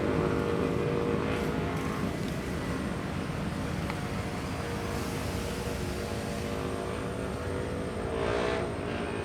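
Motor of a passing boat running steadily, slowly fading.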